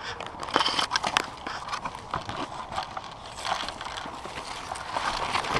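Irregular knocks, scuffs and clatter of a player moving on foot, with gear rattling against the body-worn camera.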